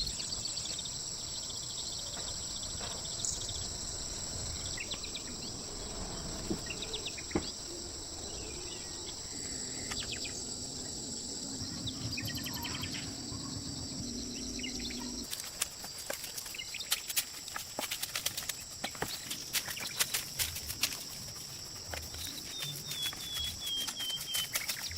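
Steady high-pitched insect trilling with scattered bird chirps. From about halfway through, a run of irregular sharp clicks and taps joins in.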